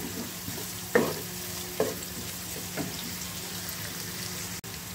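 Sliced onions sizzling in hot oil in a wok as they fry toward golden, stirred with a wooden spatula that scrapes and knocks against the pan about three times.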